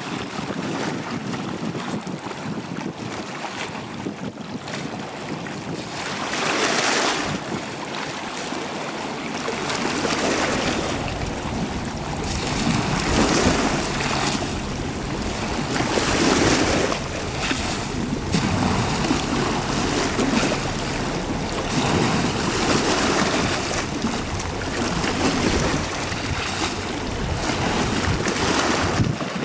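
Fast passenger ferry running past, a low engine rumble under the wash of its wake and choppy water, rising and falling in surges every few seconds, with wind buffeting the microphone.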